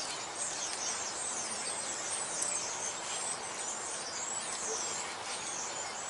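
Birds chirping: many short, high calls that quickly fall in pitch, overlapping one another throughout, over a steady outdoor hiss.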